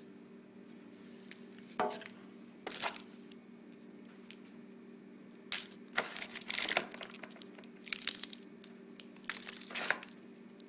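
Plastic packaging bags crinkling and rustling in several short bursts as boxed cables and accessories are handled and lifted out of a cardboard tray, over a steady low hum.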